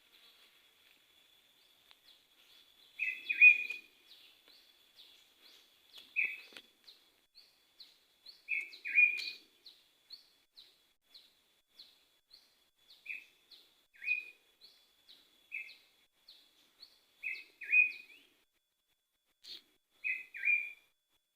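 Wild birds calling: one bird gives loud, short, downward-sliding calls, often in quick pairs, every few seconds. Behind it a fainter, higher note repeats about twice a second.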